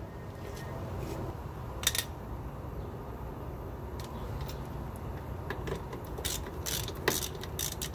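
Scattered sharp metallic clicks and taps of a hand tool working the F150's front brake caliper bolts as they are loosened, one about two seconds in and several close together near the end, over a steady low hum.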